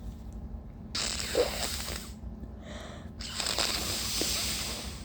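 A woman's two long, breathy gasps, one about a second in and one about three seconds in, as a tissue-induced sneeze builds up.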